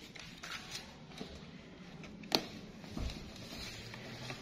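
Faint scratching of a pencil writing on paper in a small room, with one sharp click a little over two seconds in.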